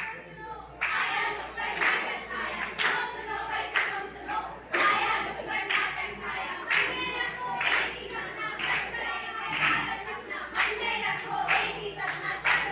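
A group of voices singing or chanting together, with hands clapping in time about once a second.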